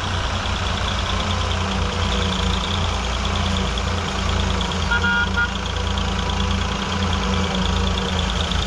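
Diesel engines of two blue farm tractors running under load in tandem, hauling a trolley heaped with sugarcane, a steady low throb with a fine rapid ticking above it. A brief high toot about five seconds in.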